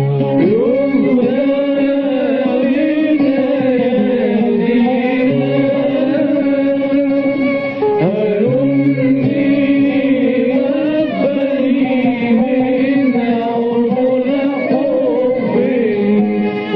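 Arabic devotional hymn music: a melody of long held, gently sliding notes over low sustained chords, with new phrases starting about half a second and about eight seconds in.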